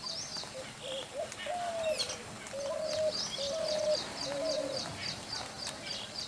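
Spotted dove cooing: a run of about six short, level coos over some four seconds. Behind it, a rapid high chirping repeats steadily, about three times a second.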